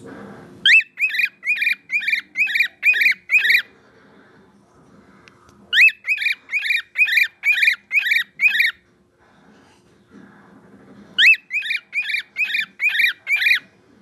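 Pet cockatiel whistling for attention: three runs of about nine quick, sharp notes, each note dipping slightly in pitch, with a pause of about two seconds between runs.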